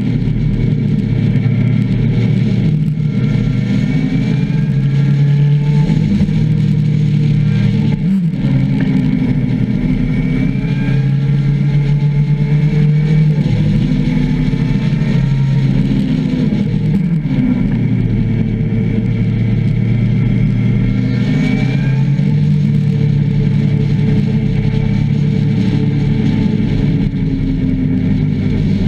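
Motorcycle engine heard close up from an onboard camera, running steadily under way. Its note rises and falls with the throttle and dips briefly several times.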